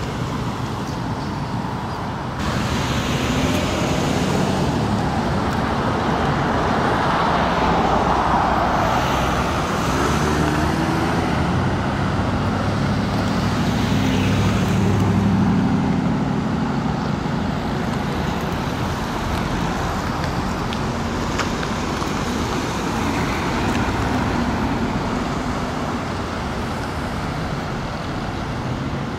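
Road traffic: cars and SUVs driving past on a multi-lane road, a steady rumble of tyres and engines that swells as vehicles pass close, loudest about a quarter of the way in and again about halfway.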